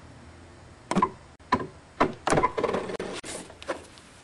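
Table giving sharp knocks and taps, about six in all, bunched into a quick cluster around the middle.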